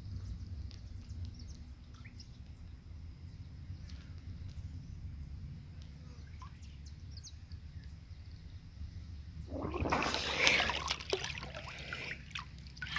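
Muffled underwater sound picked up by a phone held under the water of an inflatable pool: a low, steady rumble with faint clicks. About nine and a half seconds in comes a louder splashing and sloshing as the phone breaks the surface.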